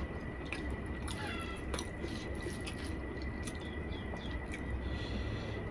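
Close, wet chewing and mouth sounds of someone eating a curry meal with scattered sharp clicks and smacks, over a steady faint high whine.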